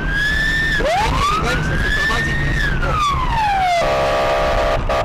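Police car siren wailing in two slow sweeps, each rising and then falling in pitch, over low car rumble. The second sweep cuts off abruptly about four seconds in, and a steady, even tone takes over.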